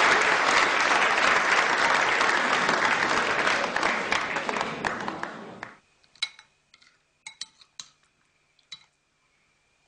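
Audience applauding, fading out about five and a half seconds in. Then a metal spoon clinks several times against a china bowl.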